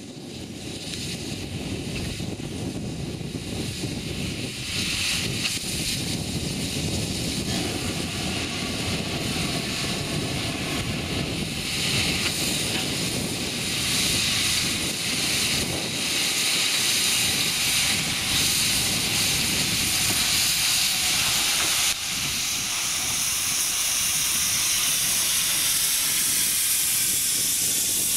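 GWR 2800 class 2-8-0 steam locomotive No. 2857 moving slowly with a train of carriages, a loud steady hiss of steam from its open cylinder drain cocks over a low rumble of the engine and wheels. The sound fades in over the first second or two.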